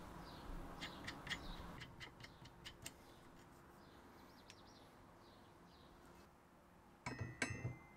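Faint light clicks as a 3D-printed PLA M10 nut is handled and set onto a steel bolt, then a short metallic clink with a ringing tone near the end as the steel socket meets it. Faint bird chirps in the background.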